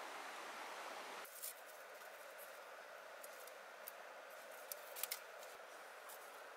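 A few short, sharp clicks or snips scattered over a steady background hiss, with two close together about five seconds in; the background changes abruptly about a second in.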